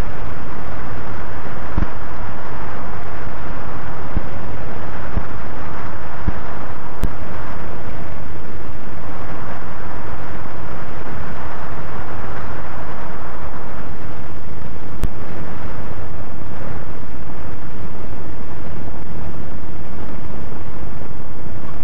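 Steady wind rush and engine noise of an experimental single-engine ultralight aeroplane on final approach and landing, with wind buffeting the microphone.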